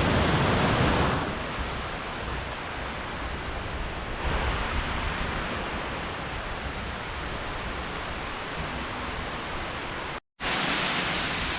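Waterfall rushing, a steady hiss of falling water. The level drops abruptly a little over a second in, and the sound cuts out for a moment near the end.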